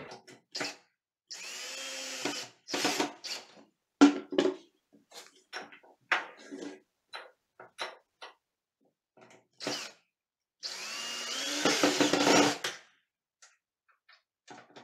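Cordless drill-driver driving screws through a toilet paper holder's metal brackets into anchors in a composite-wood vanity. It runs in two main spells, a short one about a second in and a longer, louder one near the end, with short bursts and knocks between.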